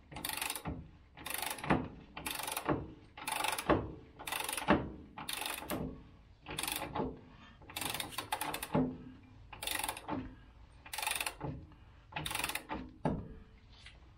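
A ratchet wrench clicking in about a dozen short strokes, roughly one a second, as it turns the screw of a ball joint press to press a new upper ball joint into a Dana 44 steering knuckle.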